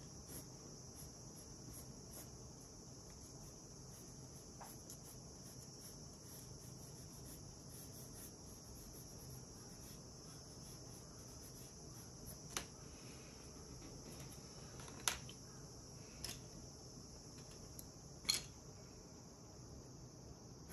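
Colored pencils being handled on a wooden desk: four sharp clicks in the second half as pencils are picked up and set down, over a steady high-pitched hiss and faint light ticks.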